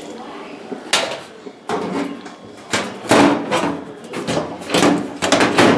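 Sheet-metal top panel of a wall oven being fitted onto the steel chassis: metallic knocks and scraping. There are single sharp knocks about one and two seconds in, then a busier run of clanks through the last three seconds.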